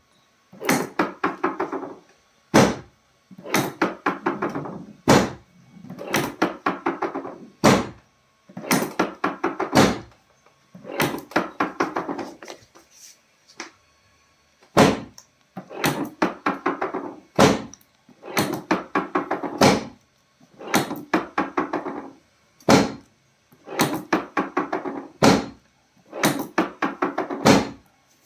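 Rapid rhythmic thumping on the body during chiropractic treatment, in bursts of about a second and a half that come every two to three seconds, with a single sharp knock between bursts.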